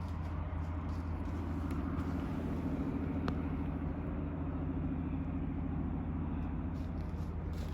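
A motor vehicle's engine running steadily, a low even hum that holds without change.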